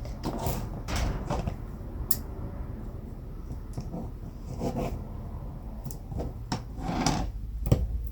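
Paper and cardstock handled on a tabletop during card-making: irregular rustles, light taps and small knocks.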